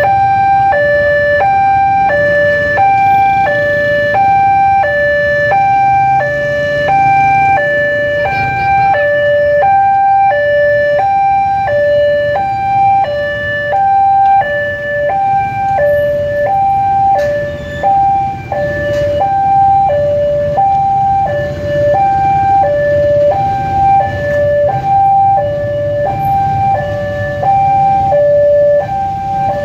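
Railway level-crossing warning alarm: an electronic two-tone signal switching back and forth between a lower and a higher pitch in a steady rhythm, sounding the whole time. A low rumble of idling motorcycle engines runs underneath.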